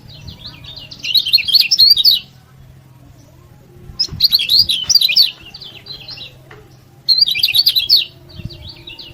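Lemon-bellied white-eye (kecial kuning) giving rapid, high 'ciak ciak' chirping calls. The calls come in three bursts about a second long, roughly three seconds apart.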